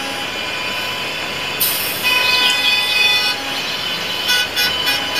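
Yellow school buses driving past on a wet road: engines running, with tyres hissing on the wet pavement from about a second and a half in.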